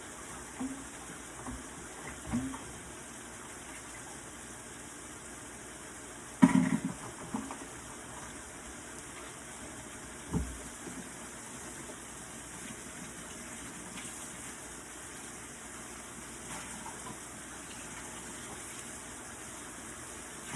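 Kitchen tap running steadily while a bowl is rinsed out at the sink, with a sharp loud knock about six seconds in and a duller thump about ten seconds in.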